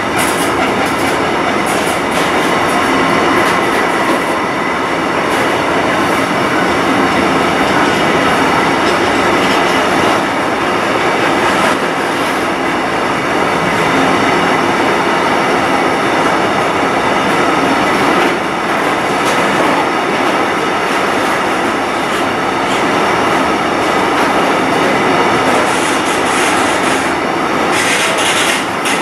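Container train of brand-new flat wagons rolling past close by, its wheels giving off a steady squeal of several high tones over the rolling rumble of the wagons. The squeal comes from the new wagons.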